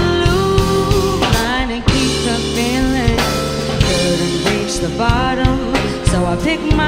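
A soul electronic band playing live: a woman sings lead into a handheld microphone, her voice sliding and wavering in pitch, over a drum kit, bass and keyboard.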